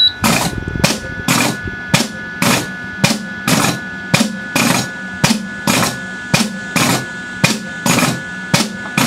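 Air-driven valves and cylinders of a Cremer CF1220 memory flap unit snapping the flaps open and shut under test, each stroke a sharp click with a short hiss of air, in a steady rhythm of about two a second.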